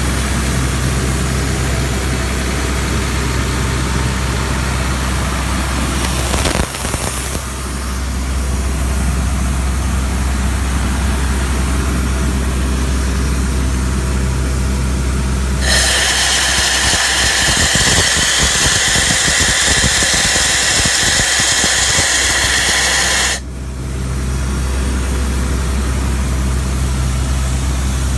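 Cummins diesel engine of an Ingersoll Rand 750 cfm portable air compressor running steadily. For about eight seconds in the middle a loud rushing hiss covers it, then cuts off suddenly.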